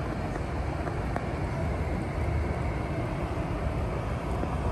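City street ambience: a steady low rumble of passing car traffic with no distinct events.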